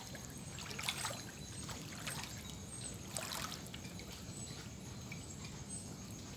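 Floodwater trickling and splashing, with a few sharper splashes scattered through it.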